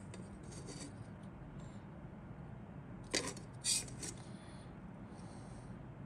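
Plastic model-kit sprue being handled on a cutting mat: a light rustle near the start, then two sharp plastic clicks about three seconds in, over a faint steady hum.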